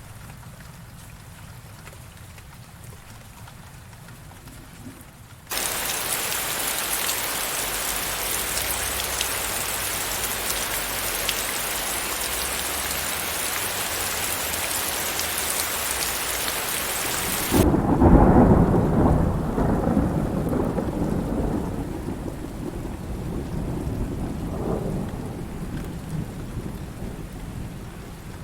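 Thunderstorm: a faint low rumble, then heavy rain hiss that starts suddenly about five seconds in. The rain cuts off abruptly as a loud thunderclap breaks about two-thirds of the way through, followed by rolling thunder that swells once more and fades.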